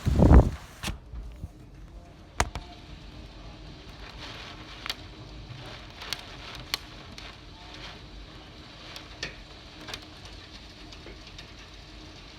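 Pea-sized hailstones striking hard surfaces as scattered, irregular sharp clicks over a steady hiss of rain. It opens with a brief loud rush of noise.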